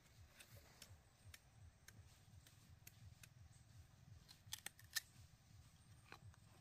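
Near silence with faint scattered clicks and a few sharper snaps about four and a half to five seconds in.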